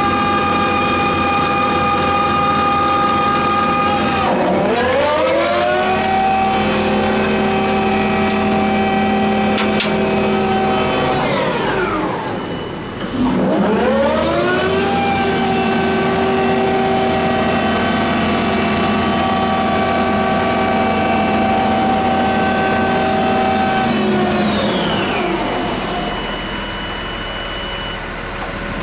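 Hyundai R140W wheeled excavator driving, its engine and travel drive giving a whine with many overtones. The pitch rises as the machine picks up speed about four seconds in and holds steady, then falls as it slows near halfway. It rises and holds again, then falls away near the end.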